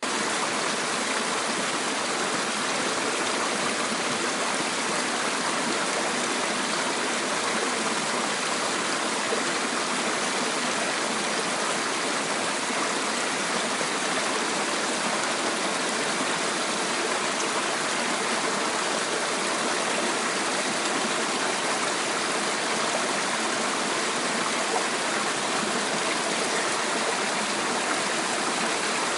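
Steady, even rushing noise, like running water, with no breaks or changes.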